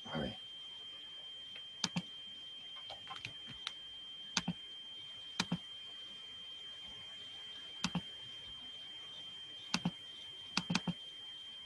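Sparse clicks from someone working a computer, mostly in quick pairs a couple of seconds apart, over a steady faint high-pitched whine.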